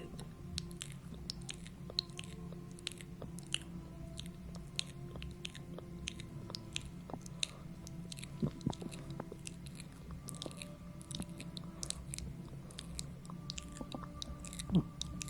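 Close-up stomach gurgling: many small irregular clicks and pops over a steady low rumble.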